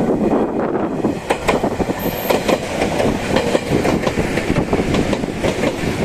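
Toyohashi Railroad Atsumi Line electric local train passing close by: steady running noise with wheels clacking over the rail joints.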